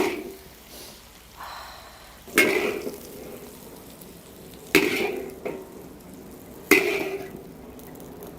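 Metal spatula striking and scraping a wok while stir-fried cauliflower is scooped out, a clang about every two seconds, each ringing briefly as it fades.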